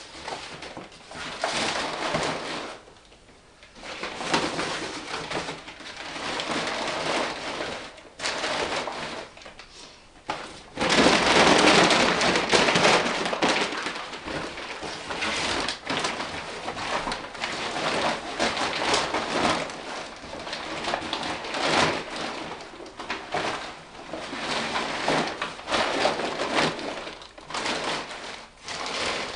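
Paper and paper sacks being crumpled and stuffed into a fireplace firebox: uneven bursts of rustling and crinkling, loudest a little over a third of the way in.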